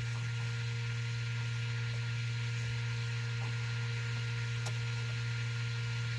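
Steady low hum over a faint even hiss, with a few faint light clicks.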